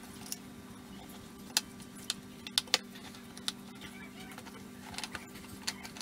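A fork clinking and scraping against a glass mixing bowl as it stirs a crumbly boilie dough, in a string of sharp irregular clinks. The loudest clinks fall between about one and a half and three seconds in.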